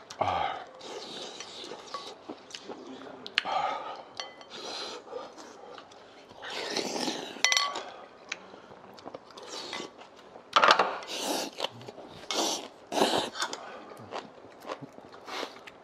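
Metal spoons and chopsticks clinking and scraping against ceramic bowls and a stone pot during fast eating, with a few short ringing clinks and several louder bursts of noise in the middle and latter part.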